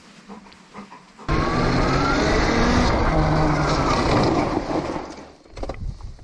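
Homemade electric dirt bike (Honda CR electric conversion) riding off: a sudden start about a second in, then a motor whine rising in pitch over a loud rushing noise, dying away near the end as the bike slows.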